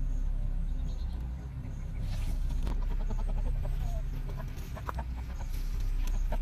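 Steady low outdoor rumble, with scattered clicks and a few short, high animal-like calls from about two seconds in.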